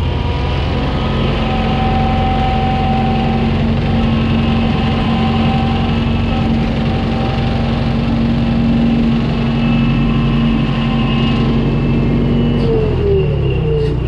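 New Holland L775 skid steer's engine running steadily at speed, with a steady whine held for most of the stretch. Near the end the engine speed dips and then picks up again.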